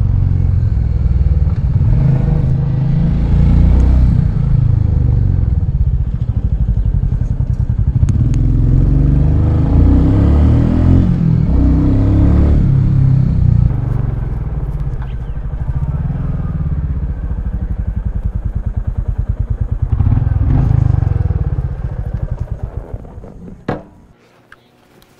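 Royal Enfield Meteor 350's 349 cc single-cylinder engine running through its stock exhaust while riding, its note rising and falling with the throttle. Near the end the engine note fades away and stops, with a single sharp knock just before it goes quiet.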